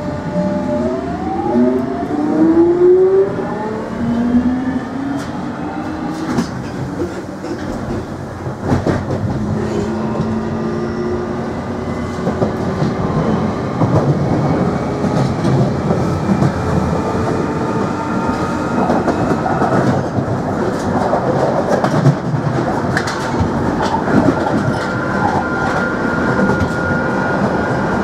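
London Underground 1996 Tube Stock train heard from inside the carriage as it accelerates: a whine climbs in pitch in several stacked glides over the first few seconds, then the train runs on with a rumble, sharp clicks over the rail joints, and a high whine that rises slowly near the end.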